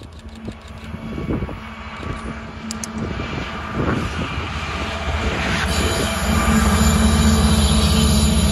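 Union Pacific diesel locomotives heading a coal train come slowly down the grade and pass close by, their engines' low drone growing louder about six seconds in as the units go past. A brief high squeal is heard about three seconds in.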